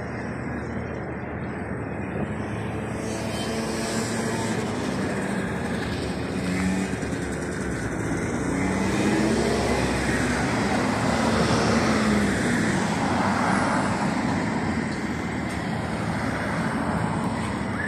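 Road traffic: motor vehicles passing on a road, with engine notes that rise and fall and grow a little louder around the middle, over a steady background hiss.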